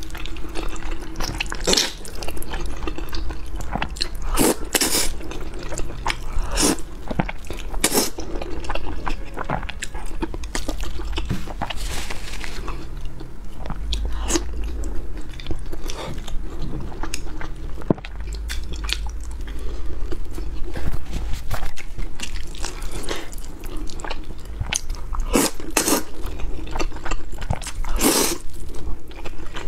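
Close-miked eating sounds: spicy noodles being slurped up and chewed with wet mouth smacks and sharp clicks throughout, and a bite into a whole boiled egg partway through.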